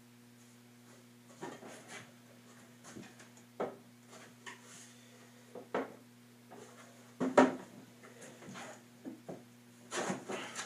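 Wooden knocks and scrapes as a triangular hardwood flag case frame and its base board are handled and set down on a saw table, several separate knocks with the loudest about seven seconds in, over a steady low hum.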